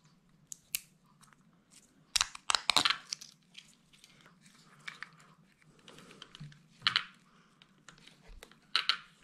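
Small plastic parts of a 1/16 scale RC car being handled and pressed into place on the chassis: scattered clicks and rustling. The loudest part is a quick run of sharp clicks about two to three seconds in, with single clicks near the end.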